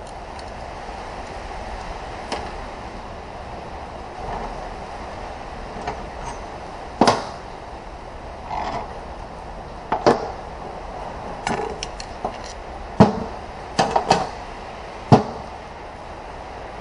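Sharp clinks and knocks of tools and metal transmission parts being handled, about half a dozen spread through the second half, over a steady background noise.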